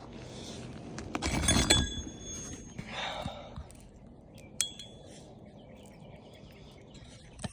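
Metal roofing tool clinking and scraping against shingles and nails, with a burst of ringing clinks about a second in and a single clink midway.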